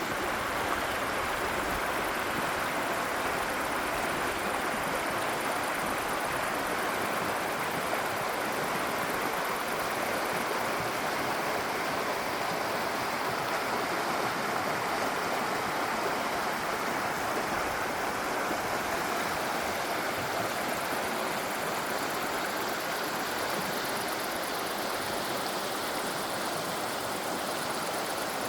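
Stream rushing: a steady, unbroken wash of running water.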